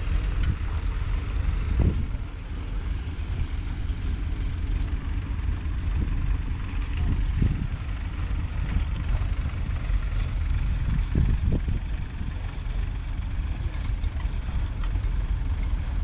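Low, gusting rumble of wind buffeting the microphone, steady in level throughout.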